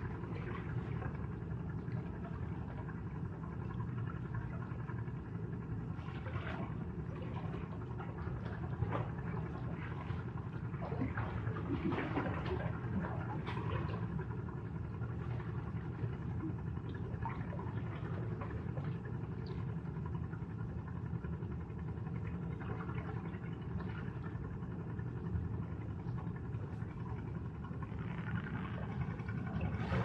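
Sea waves washing on the shore: a steady low rumble with scattered splashes, building louder near the end.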